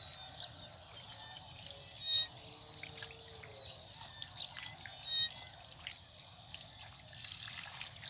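Hands scooping and groping in a shallow muddy water hole in a rice field, with water trickling and softly splashing, over a steady high whine and scattered short chirps.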